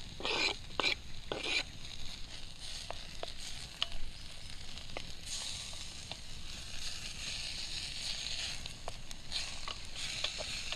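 Browning beef, peppers and tomato sizzling in a pan over a campfire. A few short knocks come in the first two seconds, and the sizzle grows steadier and stronger from about five seconds in, with scattered small ticks.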